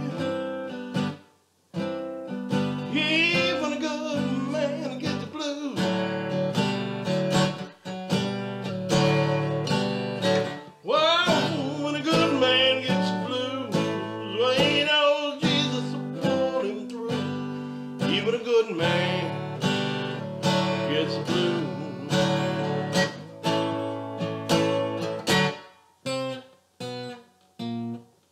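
Acoustic guitar playing an improvised blues. The playing breaks up into separate notes with short gaps near the end.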